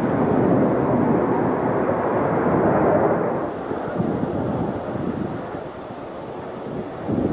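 Jet noise from a five-ship formation of US Navy Blue Angels F/A-18 Hornets flying past: a broad rushing rumble that is loudest for about the first three seconds, dies down, then swells again near the end.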